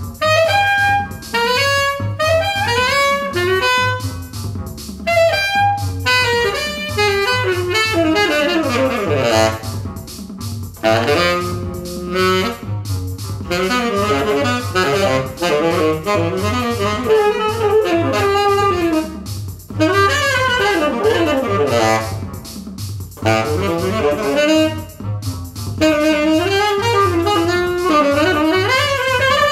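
Music: a saxophone-like lead line playing melodic runs and sliding notes over a backing track with a steady, evenly pulsing bass.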